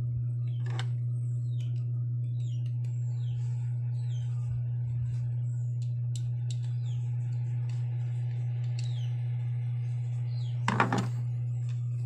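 A steady low hum with no change in pitch, with faint bird chirps high above it and a short clatter of knocks from handling metal fan-motor parts about eleven seconds in.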